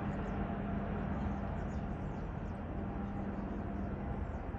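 Army helicopter in flight: a steady drone of engine and rotor noise with a low hum.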